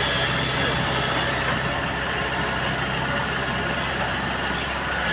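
Kubota DC-70 combine harvester's diesel engine running steadily, a low, even hum.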